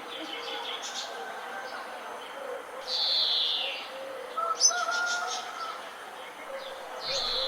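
Several birds chirping and calling, with loud downward-sliding chirps about three seconds in and again near the end and a quick burst of sharp high notes in between. Fainter, lower calls carry on underneath.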